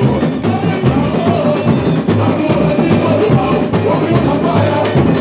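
Live samba-enredo: a samba school's percussion section drumming a steady beat, with a singer on microphone coming through a sound system.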